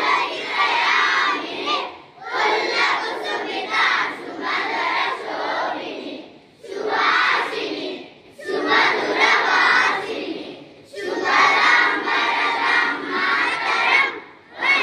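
A group of children chanting loudly in unison, in phrases of a few seconds each, with short breaks between them.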